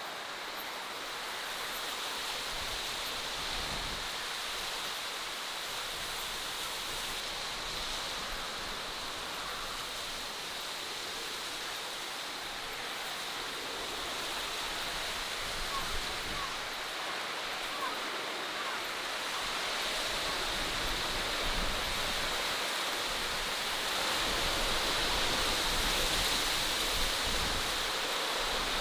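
Steady outdoor nature ambience: an even rushing noise that grows a little louder toward the end, with a faint steady high-pitched hum over it and a few faint chirps a little past halfway.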